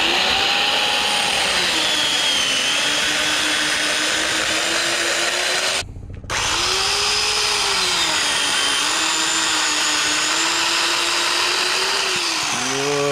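Corded WORX electric chainsaw with a freshly sharpened chain, running and cutting through a log, its motor pitch sagging and recovering as the chain bites. It cuts out for a moment about six seconds in, starts again, and winds down near the end.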